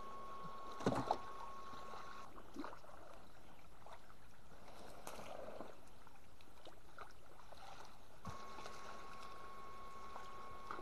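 Shallow muddy pond water splashing and sloshing as someone wades and drags tangled water spinach through it, with a brief louder splash about a second in. A thin steady high tone is heard at the start and again from about eight seconds in.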